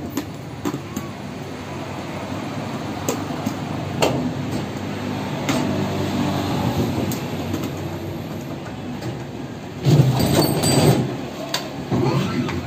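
Automatic paint mixing machine running with a pail of wall paint clamped inside, a steady mechanical hum with occasional knocks. About ten seconds in comes a louder clatter.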